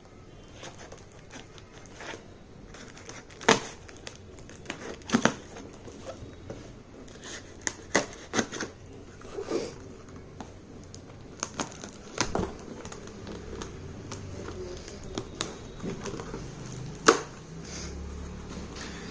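Packaging being handled and opened by hand: crinkling and tearing, with sharp clicks and knocks at irregular intervals, the loudest click near the end.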